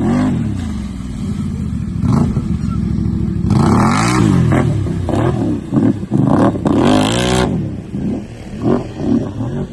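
A vehicle engine revving up and down repeatedly, its pitch rising and falling several times, with two louder rushes of noise at about three and a half and seven seconds in.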